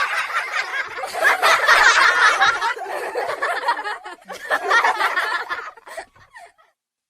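Laughter sound effect: continuous laughing for about six seconds, tailing off in a few short bursts and stopping shortly before the end.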